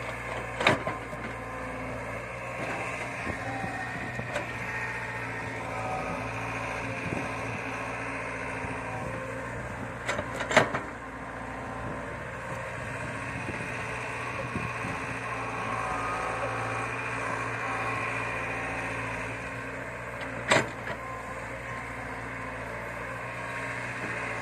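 Caterpillar E70B hydraulic excavator working, its diesel engine running steadily. Three sharp knocks come about ten seconds apart, one per dig-and-dump cycle of the bucket.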